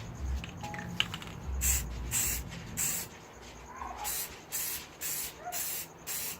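A series of short hissing spray bursts, as from a spray nozzle being worked over an engine block. The bursts come about twice a second in the second half.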